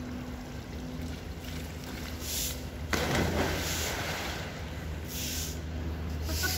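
Young polar bear plunging into a pool: a sudden splash of water about three seconds in, then the water churning for about a second, over a steady low hum.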